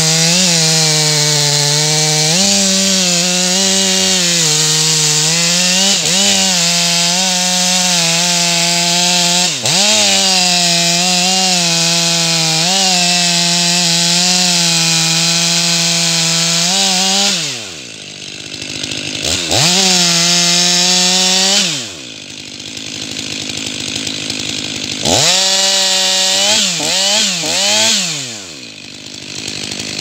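Stihl MS 500i fuel-injected two-stroke chainsaw cutting into a beech trunk at full throttle, its engine note dipping slightly under load. A little over halfway through it drops to idle with a quick blip of the throttle, then revs up and down in short bursts near the end.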